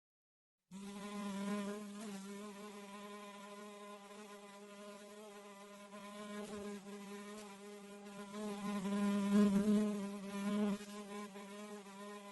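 House fly buzzing in flight: a steady, slightly wavering hum that starts about a second in and grows louder for a couple of seconds toward the end.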